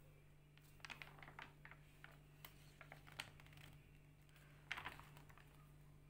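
Faint scattered clicks and taps, a cluster about a second in and a louder burst near five seconds, over a faint steady low hum.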